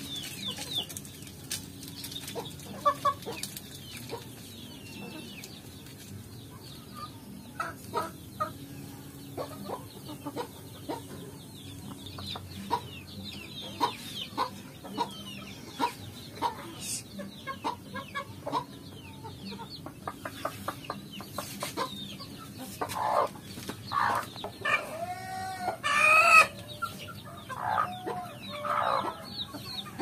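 Local free-range chickens clucking, with chicks peeping in short high falling chirps. Several louder hen calls come in the last few seconds.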